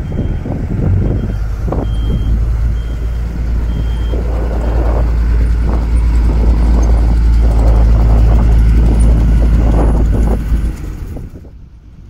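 Diesel engines of heavy asphalt-paving machinery running loud and close, a steady low rumble. A reversing alarm beeps several times over the first few seconds. The engine sound falls away abruptly near the end, leaving a quieter hum.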